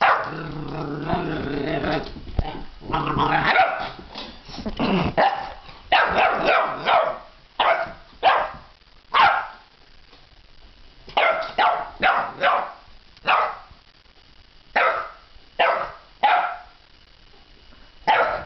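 Boxer puppy, eleven weeks old, growling at a metal sculpture for the first few seconds, then barking at it in a string of a dozen or more short barks, with a brief lull midway.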